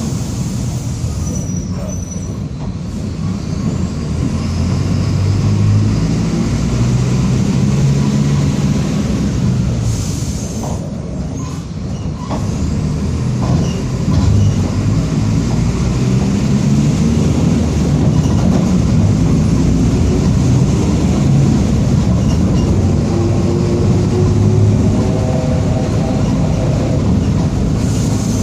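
Mercedes-Benz OF-1722M bus drivetrain under way: the diesel engine pulls up and eases off, with a drone that the uploader calls a growling differential. The sound drops back briefly about ten seconds in, with a few short clicks, then pulls again with a rising whine near the end.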